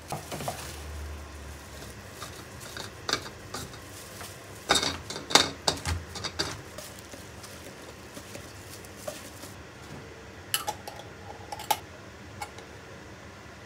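Shredded cabbage being pressed down into a glass jar through a wide funnel with a wooden tamper: scattered knocks and clinks, busiest around the middle. Near the end come two sharp clicks with a short ring as the lid goes on the jar.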